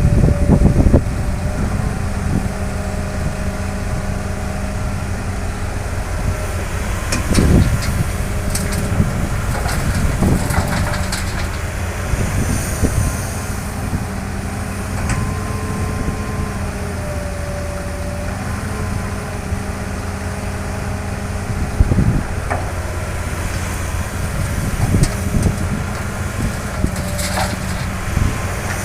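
Heavy diesel construction machinery running steadily, with several clanks and knocks, the loudest about seven seconds in and again a little past twenty seconds.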